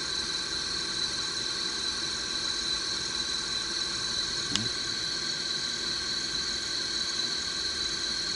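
Drill press with a replacement electric motor on a variable-frequency drive, running steadily and quietly at low speed, about 380 rpm, with a steady high-pitched whine over its hum. One short click about four and a half seconds in.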